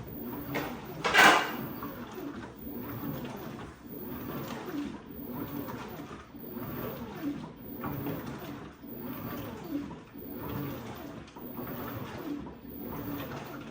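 Direct-drive LG WT16WV6 top-load washing machine agitating towels in water: each back-and-forth stroke gives a swish of water and fabric, about one every 1.2 seconds. There is one louder knock about a second in.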